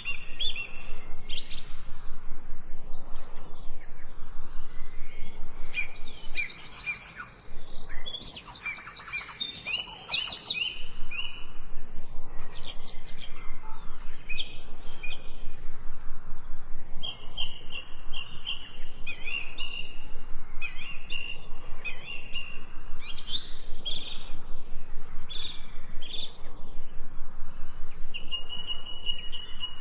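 Several songbirds singing and calling at once, a continuous run of quick chirps, whistles and short trills. The chorus is busiest a third of the way in.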